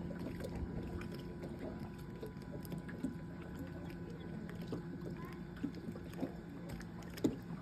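Electric linear actuator (18-inch stroke) running steadily with a low hum as it slowly lifts a boat's engine hatch, with scattered light ticks and a sharper knock near the end.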